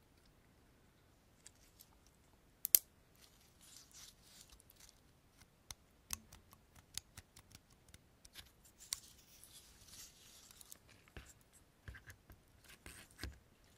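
Dry pinecones being handled and scratched: scattered crisp clicks and crackles from the woody scales, with one sharp snap about three seconds in and two stretches of dry rustling.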